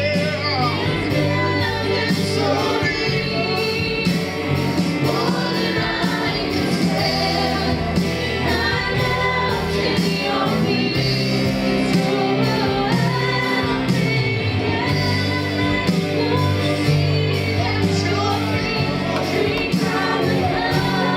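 Live gospel praise music: several voices singing over a band, with sustained low notes and a steady beat.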